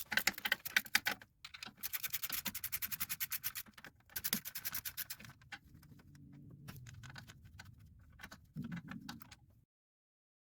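Ratchet wrench with a deep socket clicking rapidly in several short runs while bolts are loosened. The sound cuts off abruptly near the end.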